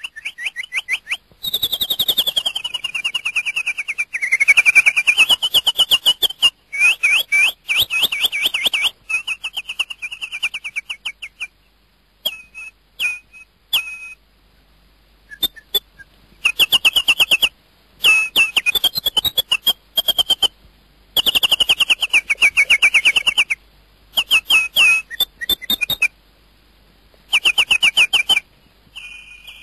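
Bird calls: rapid high trills, in bursts of one to three seconds with short gaps between them. Some trills glide down in pitch and back up.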